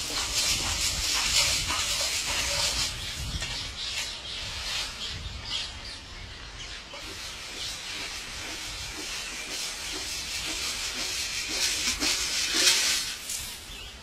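Hissing, crackling rush of grain being scattered across a concrete rooftop and crunching underfoot, with some birds chirping.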